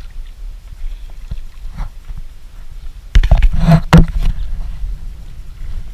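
Water noise around a small rowed dinghy, with a steady low rumble and a loud splashing clatter about three seconds in.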